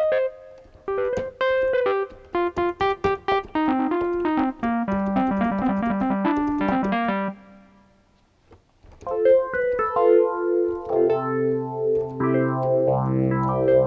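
Yamaha MX49 keyboard playing its Distorted Wurlitzer electric piano preset: a run of notes that mostly falls in pitch, stopping about seven seconds in. After a short pause, about nine seconds in, a different electric piano patch starts with held chords, joined by a low sustained note about eleven seconds in and a sweep near the end.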